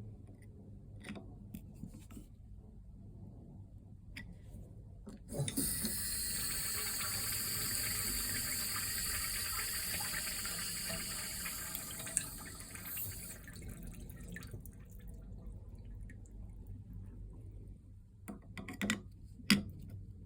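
Urinal flush valve flushing: after a knock, water rushes steadily into the urinal for about eight seconds, then tapers off and stops. A few scattered clicks and knocks come before and after the flush.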